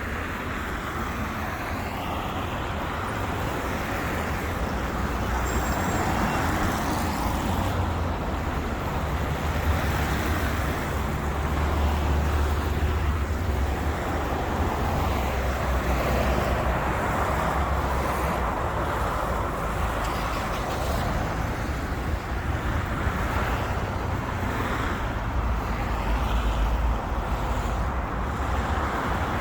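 Steady road traffic: cars, trucks and buses passing on a busy city avenue, a continuous low rumble with swells every few seconds as vehicles go by.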